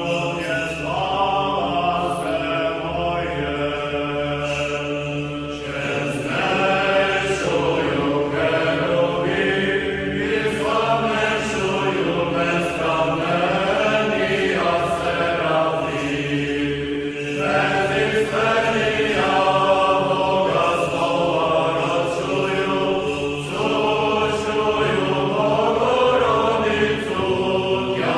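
Background music: a vocal chant, voices singing a slow melodic line over a steady held low note.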